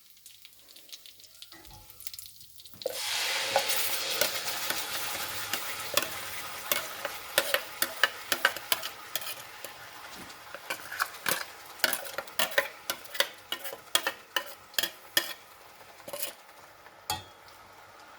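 Spices crackling faintly in hot sesame oil, then a coarse ground onion, ginger, garlic and pepper paste hits the pan about three seconds in with a loud sizzle that slowly dies down. A spoon stirs it, clicking against the pan many times.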